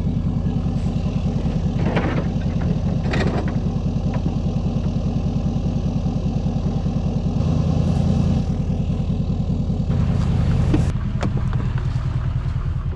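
Motor vehicle engine running steadily with an even pulsing hum. It picks up briefly twice and settles to a lower idle about eleven seconds in.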